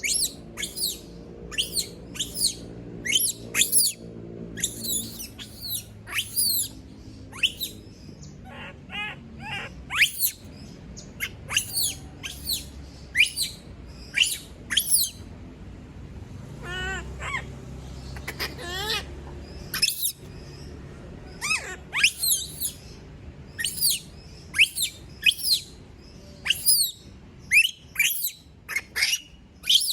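A pet monkey screaming at being left alone: repeated short, shrill calls that sweep down in pitch, one or two a second. Twice, about a third and three fifths of the way in, the calls turn into quick runs of lower, chirping cries.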